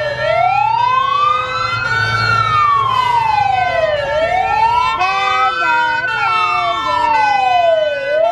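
Tatra 815 fire engine's wailing siren, rising and falling slowly in pitch about every four seconds, over the low running of the truck's engine. A short stepped tone pattern sounds over the wail around five to six seconds in.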